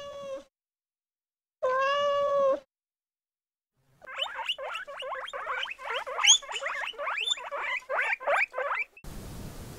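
Domestic cat meowing twice in long, drawn-out calls. After a short pause comes a fast, loud run of short rising chirps from another animal, several a second, which stops abruptly near the end.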